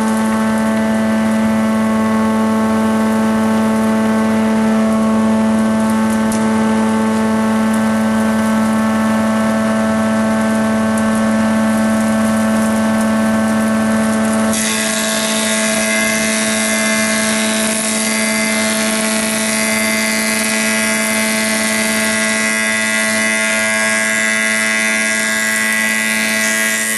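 Thickness planer running with a steady motor hum, planing a thin wooden board to thickness. About halfway through, the sound turns harsher and hissier as a board is fed into the cutterhead.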